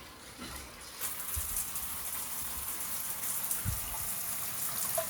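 A steady rushing hiss that comes in about a second in, with a single low thump near four seconds.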